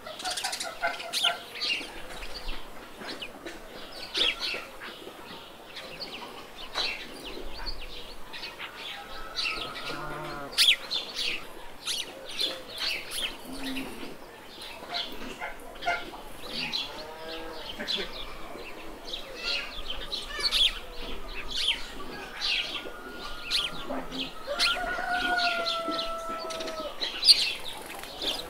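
Birds chirping busily and without a break, with a few longer drawn-out calls from chickens.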